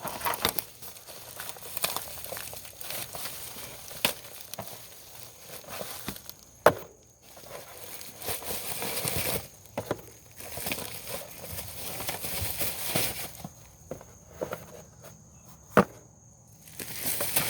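Packaging of new ignition coils being handled: crinkling and rustling, with scattered sharp knocks, the loudest about seven seconds in and another near the end.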